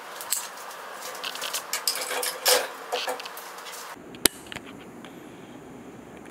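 Metal clicks and rattles from a bandsaw blade and its bearing blade guides being handled as the blade is fitted. There is a quick run of clatters, then one sharp click a little after four seconds in.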